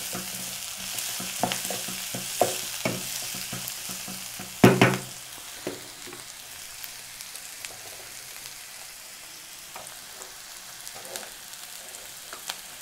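Chopped onion, capsicum and tomato sizzling as they fry in a non-stick kadai. A spatula scrapes and knocks against the pan a few times in the first five seconds, with one louder knock a little before the middle. After that there is a steady sizzle.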